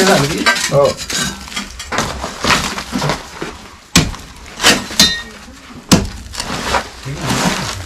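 A metal hoe and rod poking and scraping through dry palm fronds, sticks and soil, with rustling and crackling of the debris and two sharp knocks about four and six seconds in.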